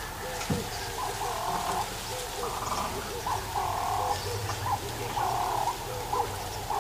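A chorus of repeating wild animal calls: a low, short call about three times a second, under longer, higher calls that come roughly every second and a half.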